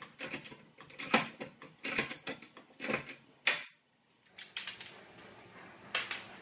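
Hand pop-rivet gun squeezed repeatedly to set a 4 mm blind rivet through steel trunking: a run of sharp clicks about every half second, ending in a sharper snap about three and a half seconds in as the rivet sets. A few lighter clicks and knocks follow near the end.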